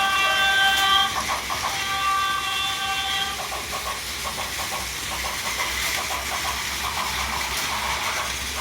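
Plarail toy train layout: a toy train's electronic horn sounds twice, each toot about a second long, then a run of rapid, evenly spaced clicking.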